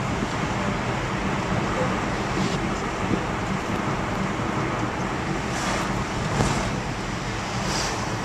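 Steady engine and tyre noise of a moving vehicle, heard from inside its cab, with a few brief swells of hiss.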